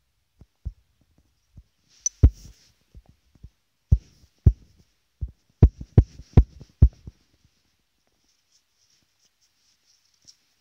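Taps on a touchscreen, picked up by the device's own microphone as dull thumps with a click on top: an irregular string of taps, thickest between about two and seven seconds in, then stopping.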